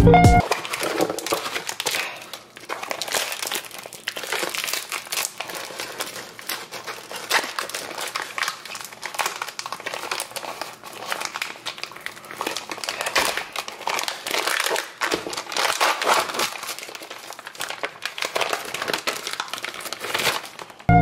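Thin clear plastic packaging of frozen sausage patties crinkling and crackling as hands peel it open and pull the patties out, a dense, irregular run of crackles.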